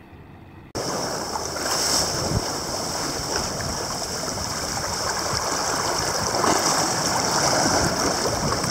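Water rushing and splashing along the hull of a sailboat under way, its bow wave breaking beside the hull. The rushing starts abruptly under a second in and stays loud and steady.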